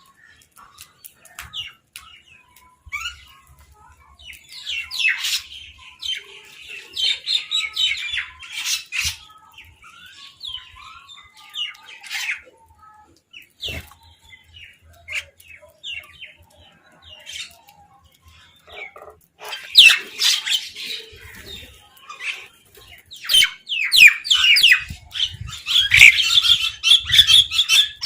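Birds squawking and calling in quick, overlapping bursts. The calls come thick about five to nine seconds in, thin out through the middle, then grow busy and loud again from about nineteen seconds in.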